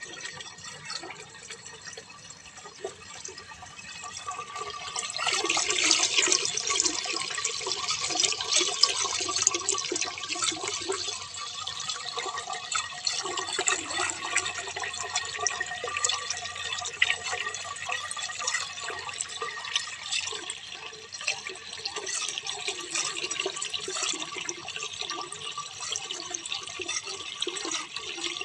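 Running water and rain splashing steadily, with many small drips and splashes. It swells louder about five seconds in.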